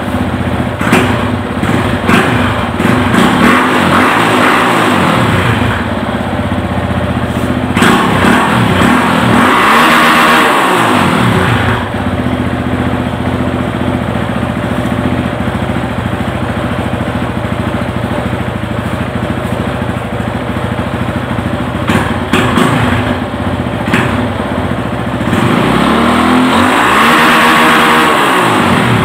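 Yamaha Fazer 250's single-cylinder engine running through a Coyote 2 Way aftermarket exhaust, idling and revved up and back down in long swells, most strongly about ten seconds in and again near the end. The engine is cold, which the owner gives as the cause of its stumbling. It is heard through a phone's microphone.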